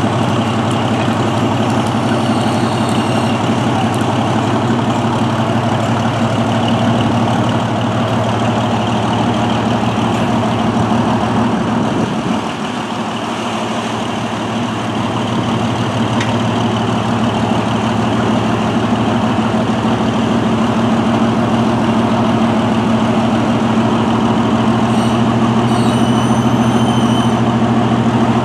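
Engine of a Northwest 80D crawler crane running steadily as it works, its level easing slightly for a few seconds about twelve seconds in.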